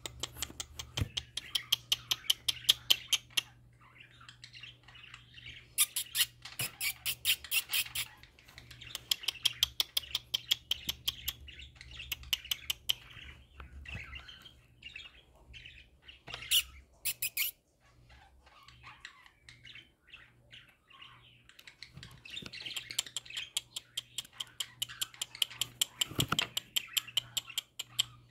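Several pet budgerigars chattering and warbling: runs of rapid, high, clicky chirps lasting a few seconds each, with short quieter pauses between them.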